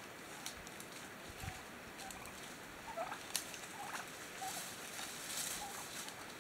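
Wild turkeys calling: a run of short, separate call notes beginning about halfway through.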